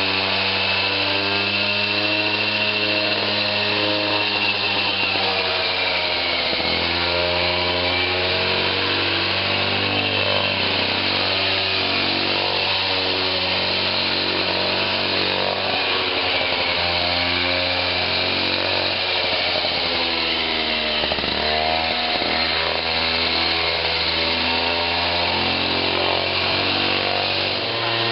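Background music: a buzzy, distorted line of held notes, several at once, stepping to new pitches every second or so, with a couple of short swoops.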